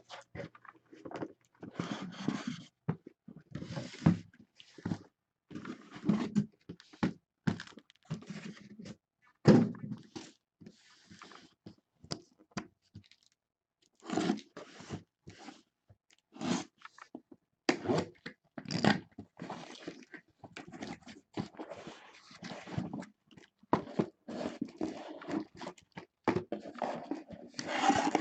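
Cardboard shipping cases being handled on a table as a sealed case of trading card boxes is unpacked. Irregular scraping, crinkling and thuds of cardboard are heard as the inner cases are lifted out and set down.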